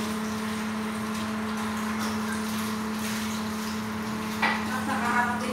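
Steady low electrical hum, with faint voices in the background near the end.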